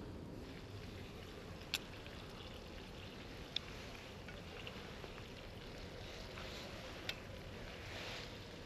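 Kavurma and egg frying in butter in a pan: a faint steady sizzle with three sharp pops of fat spread through it.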